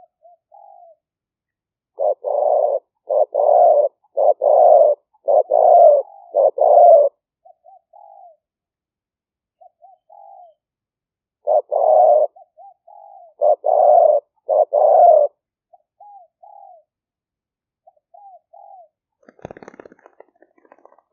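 Spotted dove cooing: two loud bouts of rhythmic coo phrases with soft, short notes in the pauses between them. A faint brief rustle comes near the end.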